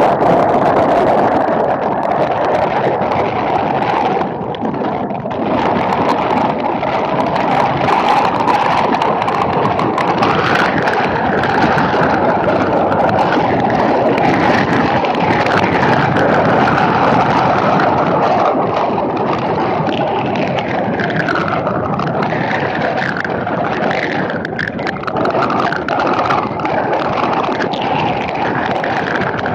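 Steady rush of wind buffeting a camera mounted on a moving vehicle, with road noise underneath and faint whistles that rise and fall at times.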